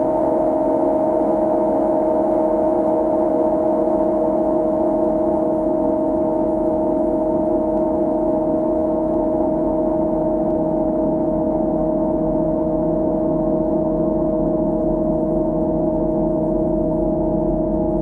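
Dark ambient electronic drone: a dense cluster of sustained tones held steady, with no beat and no change in loudness.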